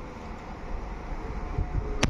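PESA Elf (EN76) electric multiple unit running in towards the platform: a low rumble with a faint steady whine, mixed with wind buffeting the microphone.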